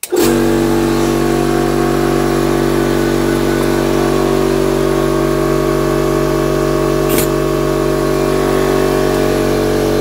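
Workshop air compressor switching on and running loudly at a steady, unchanging pitch. A brief sharp click about seven seconds in.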